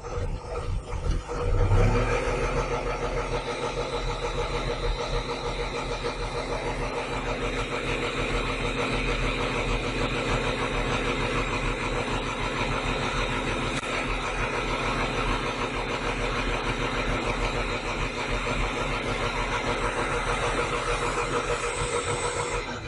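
Diesel engine of a Kato 25-ton truck crane, a machine that had stood unused for a long time, rising sharply about two seconds in and then running steadily, falling away near the end.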